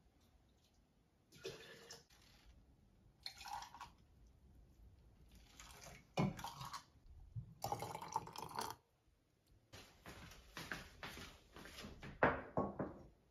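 Hot soybean water being ladled from a steel pot into a mug: several short pours of liquid, with sharp clinks and knocks of utensils and crockery in the last few seconds.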